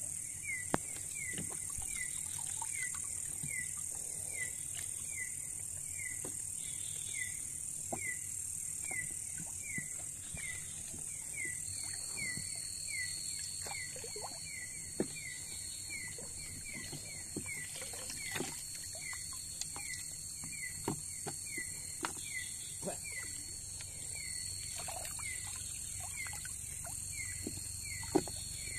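Night insect chorus by a small river: a steady high hiss, a regular chirping call about twice a second, and a steady high-pitched trill that joins about a third of the way in. Occasional short knocks and splashes from the bamboo pole and landing net working the shallow water.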